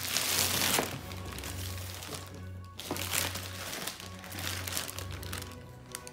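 Plastic shipping bag crinkling and rustling as it is pulled off a cardboard box, loudest in the first second and again about three seconds in. Background music with a steady low bass runs underneath.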